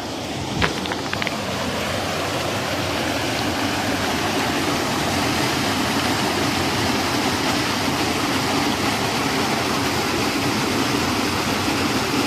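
Small waterfall and rushing stream water, a steady rush that grows a little louder after the first couple of seconds. A few sharp knocks come near the start.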